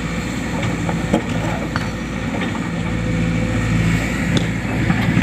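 Sumitomo hydraulic excavator's diesel engine running steadily, with a few short sharp knocks over it, about a second in, near two seconds, and near the end.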